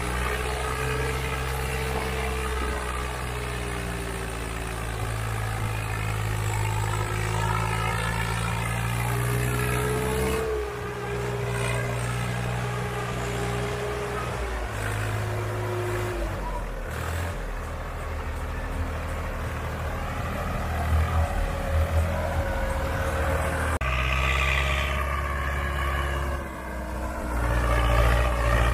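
Diesel tractor engine running hard under load, hauling a loaded trolley through soft sandy soil. The engine speed rises and falls, and the sound changes abruptly a few times.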